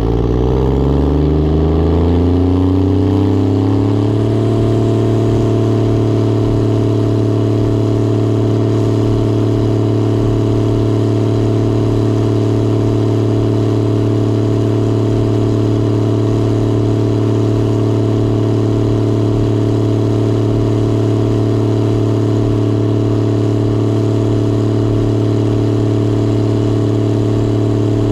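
Gleaner R72 combine's diesel engine throttling up, its pitch rising for about four seconds. It then runs at a steady speed.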